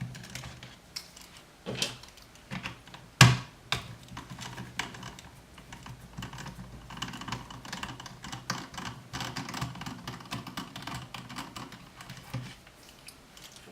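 Small clicks and taps of a screwdriver working out the little screws of an RC truck's plastic receiver box, with one sharp knock about three seconds in.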